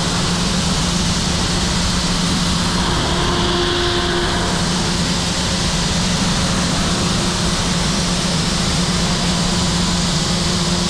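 Heller CP 6000 five-axis machining center finish-milling a pump housing with a ball end mill in synchronous 5-axis motion: a steady, even hiss of cutting over a constant low machine hum with a fixed tone.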